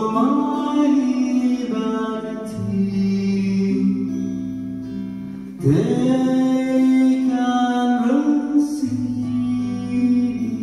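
Live acoustic band music: a man sings long held phrases over acoustic guitar and sustained low notes, a new phrase swelling in about six seconds in.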